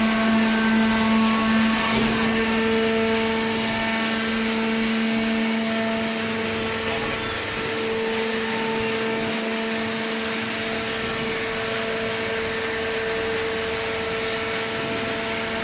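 Paper baler machine running, its motor and pump giving a steady mechanical hum with a constant tone, the lower note stronger for the first two seconds or so.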